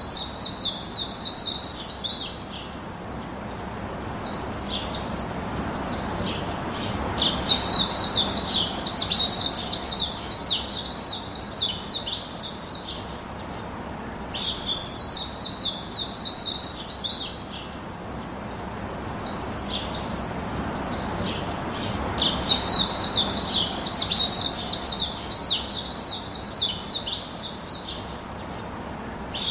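Birdsong: rapid, high chirping trills in phrases a few seconds long, recurring every few seconds, over a steady soft background hiss.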